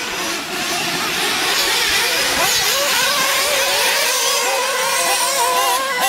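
A pack of nitro-powered RC off-road cars racing off the start, their many small engines whining together at constantly rising and falling pitches.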